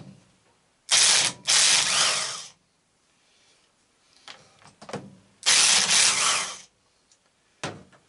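An old corded Black & Decker power tool running in two bursts, the first about a second and a half long with a brief catch partway through, the second about a second, spinning out tight bolts on an engine's cylinder head.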